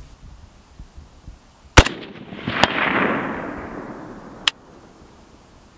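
A single shot from a Rifle Dynamics AK-47 built on an Arsenal SLR-107, chambered in 7.62×39, about two seconds in: one sharp crack followed by a long echo that fades over about two seconds, with two fainter sharp clicks during it.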